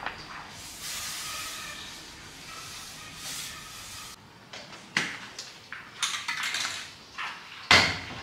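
A steady hiss for the first few seconds, then a series of sharp clicks and knocks of hard parts being handled in a workshop, the loudest near the end.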